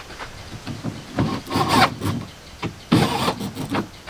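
Corded electric drill driving self-tapping screws into plywood, in short bursts of motor run and screw bite, the main ones about a second in and about three seconds in.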